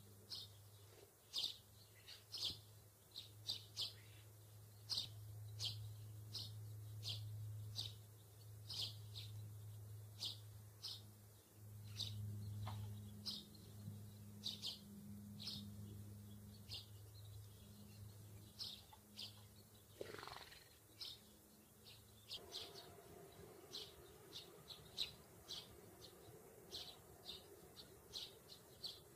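A small songbird chirping over and over in short, high chirps, one or two a second. A low steady hum sits beneath for most of the first twenty seconds.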